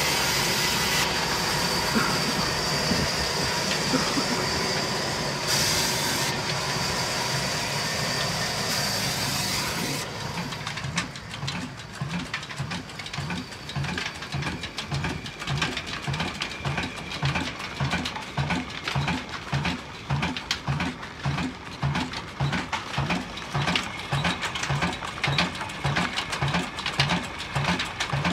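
Old Ruston Hornsby diesel engine running. For the first ten seconds there is a steady, even sound with a high whine; after that the engine's slow, regular beats come through at about two a second.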